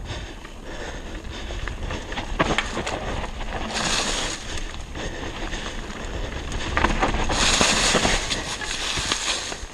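Mountain bike rolling down a dry, leaf-covered dirt trail: tyres crunching over leaves and dirt and the bike rattling over bumps, with wind on the microphone. The noise swells into a louder rush about four seconds in and again for a couple of seconds near the end.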